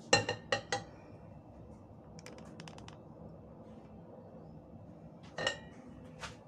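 Metal kitchenware clinking: three sharp ringing knocks right at the start, a faint patter of light ticks a couple of seconds later, and one more ringing clink near the end.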